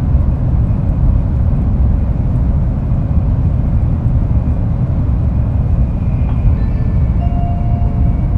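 Shinkansen train running along the line, heard inside the passenger car: a steady low rumble of wheels, track and air noise. Near the end, a few steady electronic tones come in over it.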